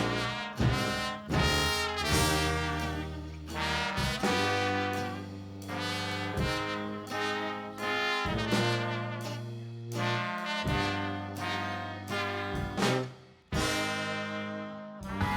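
Background jazz music led by brass, trumpet and trombone, over sustained bass notes that change every second or two.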